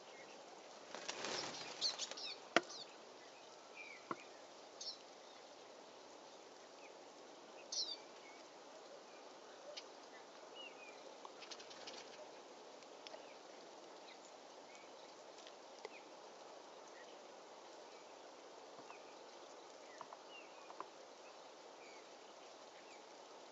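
Short, high chirps and call notes from small songbirds, scattered every few seconds over a faint steady hiss. About a second in comes a brief flutter of wings, followed by a sharp click.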